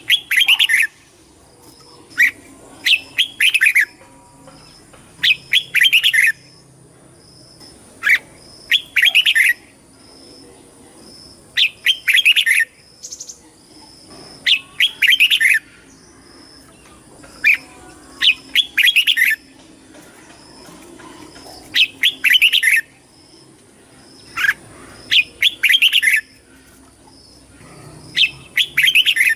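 Red-whiskered bulbul singing: short, loud phrases of a few quick notes, repeated every two to three seconds.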